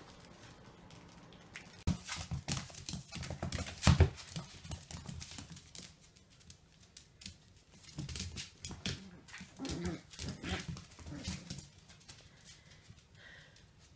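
Two puppies playing rough on a tile floor: paws and claws clicking and scuffling, with a louder thump about four seconds in. A few brief puppy vocalizations come in the second half.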